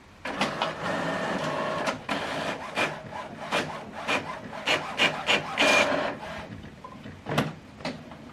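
HP OfficeJet Pro 9120e inkjet printer printing a page. Its mechanism whirs steadily for about the first two seconds, then goes on with a run of clicks and short mechanical strokes that thin out to a few clicks near the end.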